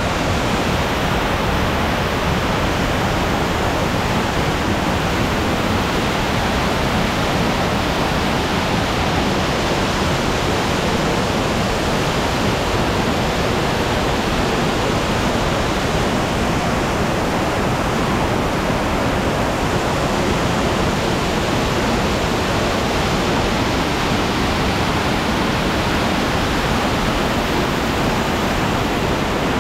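Waterfall plunging into a small rock grotto: a steady, loud rush of falling water and spray.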